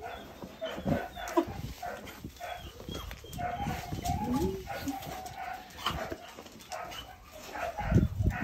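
German shorthaired pointer puppies whining and yipping in many short, high calls, with clicks of paws and claws on stone paving and a low thump near the end.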